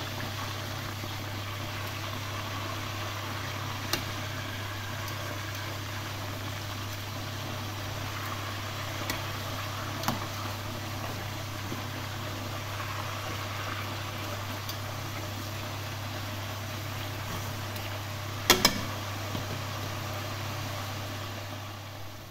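Quail frying in hot oil in a pot: a steady sizzle under a constant low hum, with a few clicks of metal tongs against the pot, the loudest near the end.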